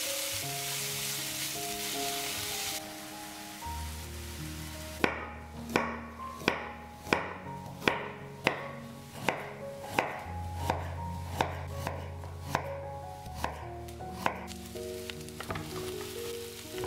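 Onion slices sizzling in a frying pan for the first few seconds. Then a chef's knife slicing a carrot into rounds on a wooden cutting board: about fifteen crisp cuts, roughly one every two-thirds of a second, each striking the board.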